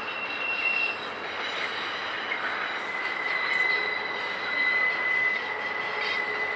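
Double-stack intermodal freight cars rolling past on a curve, with steady high-pitched wheel squeal over the rolling noise. One squeal tone stops about a second in, and a lower one starts around three seconds in and holds.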